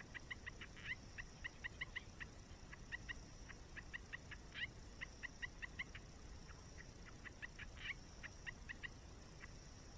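A bird calling in quick runs of short, clipped notes, several a second, with louder calls now and then, over a steady high hiss.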